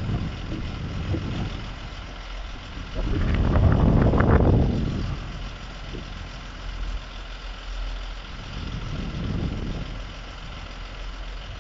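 Recovery truck's engine running steadily to drive its lorry-mounted crane as it hoists a car onto the flatbed. The sound swells louder for a couple of seconds about three seconds in, and a little again near the end.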